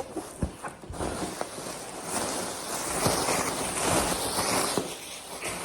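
Packaging being handled while an espresso machine is unboxed: a few knocks, then a long stretch of rustling and crinkling from about two seconds in until near the end.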